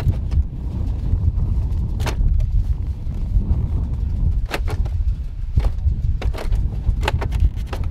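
Wind rumbling on the microphone, with several sharp plastic clicks and knocks, most of them in the second half, as the snowmobile's plastic hood is worked loose and lifted off.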